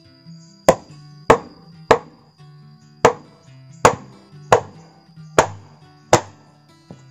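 Eight sharp chopping strokes, a blade striking something solid at an uneven pace of a little over one a second, over background music.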